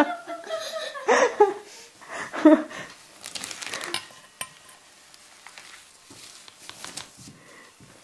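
A child's laughter in the first second or so. Then a baking-soda volcano's reaction fizzes faintly with small crackles as carbon-dioxide foam bubbles up around the bottle.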